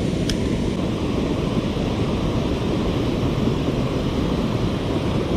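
Steady, deep rushing noise with no pauses, with a single short click about a third of a second in.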